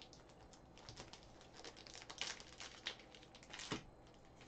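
Faint crinkling and rustling with scattered light clicks as a new pack of plastic card sleeves is opened and handled.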